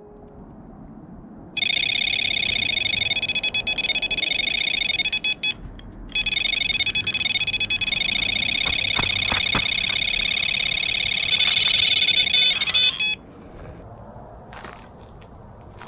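Carp fishing bite alarm sounding a continuous, fast-warbling electronic tone for about eleven seconds, with a brief break about five seconds in, then cutting off: a run, with a fish taking line.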